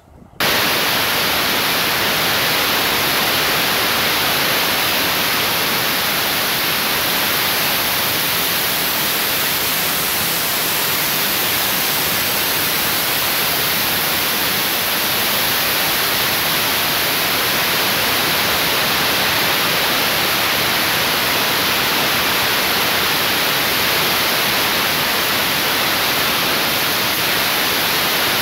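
Loud, steady static hiss that cuts in abruptly about half a second in and holds unchanged throughout.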